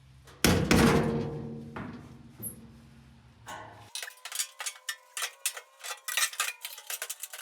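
A loud metallic clang as the new steel gas tank knocks into place in the truck cab, ringing and fading over a couple of seconds. From about four seconds in, a fast, irregular run of light clicks and knocks.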